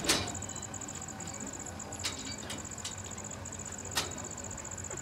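Insects chirring outdoors: a high, rapidly pulsing chirr that runs on steadily. A few sharp knocks come over it, one at the start, a couple about two seconds in and one about four seconds in.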